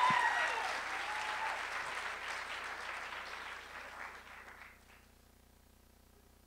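Audience applauding, dying away steadily over about five seconds and then cut off abruptly to silence.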